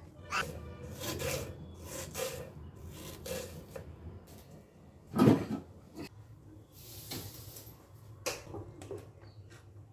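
Kitchen knife cutting and scraping on a wooden chopping board: a run of short chopping and rubbing strokes while an onion is cut, with one loud knock about five seconds in and another sharper knock near the end.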